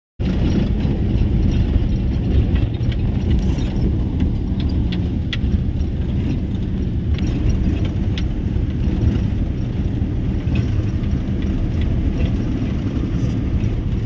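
Vehicle driving along a rough dirt road, heard from inside the cab: a steady low rumble with frequent small rattles and clicks.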